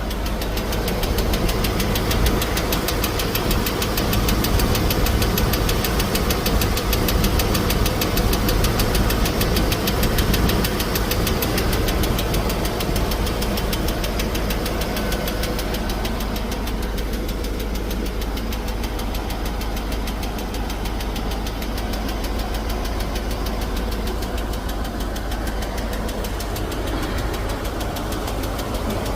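Engine running with a fast, regular ticking from the valvetrain: lifter noise, the sign of a noisy or collapsed hydraulic lifter. It runs a little louder for about the first twelve seconds, then settles.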